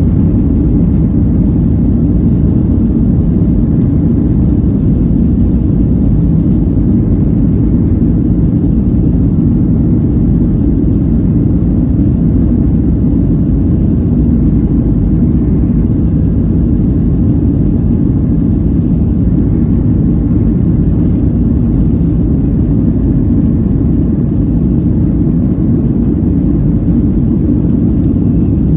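Cabin noise in a Boeing 737-800 on its take-off roll: the CFM56-7B engines and the wheels on the runway make a loud, steady low rumble.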